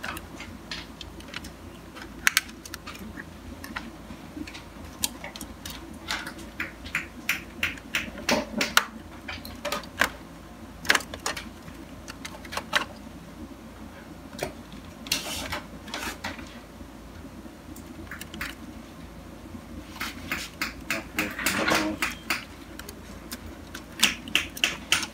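Irregular small plastic clicks and taps as wire harnesses are pulled out of their plastic hooks and connectors are unplugged inside a Canon MF643 colour laser printer. The clicks come in scattered clusters, with a faint steady hum underneath.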